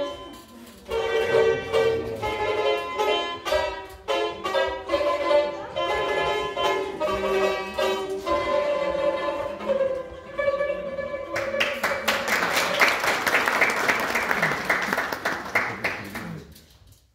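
Two Azerbaijani tars played together, plucking a quick melody that ends about eleven seconds in. Then an audience applauds for about five seconds.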